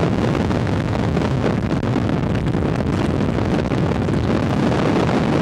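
Steady wind and engine noise of a small plane in flight, with heavy wind buffeting on the microphone.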